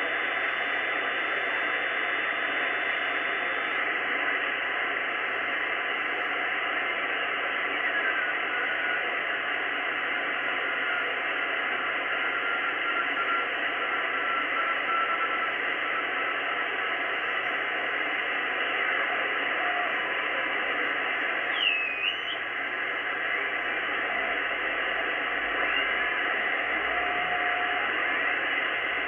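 Icom IC-R8500 communications receiver in single-sideband mode tuned to the XW-2F satellite downlink: steady, band-limited radio hiss with faint drifting whistles of weak signals. A brief swooping whistle comes about two-thirds of the way through.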